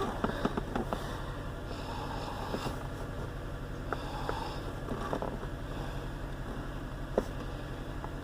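Acura TSX 2.4-litre four-cylinder engine idling steadily with a cylinder 2 misfire, the fault behind the shaking the mechanic points out. A few clicks and taps come in the first second, and one sharp click about seven seconds in.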